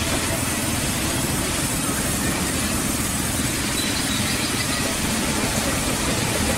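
Band sawmill running steadily, its motor humming as the blade rips a log lengthwise into a slab.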